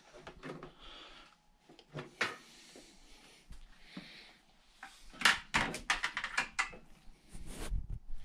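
Handling noise at a cluttered workbench: scattered knocks and clatters of objects being moved and bumped, a quick run of them loudest about five to seven seconds in.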